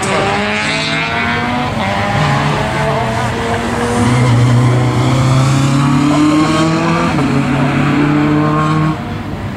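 Race car engine running hard at high revs, its pitch shifting and stepping as the driver works through the slalom. It gets louder about four seconds in and falls off sharply near the end as the throttle is lifted.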